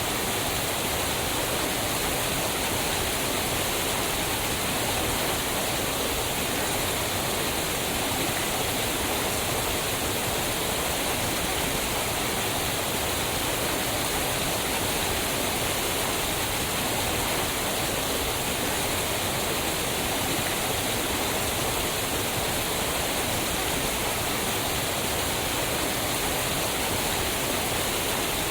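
Waterfall: water falling onto rocks with a steady, unbroken rush.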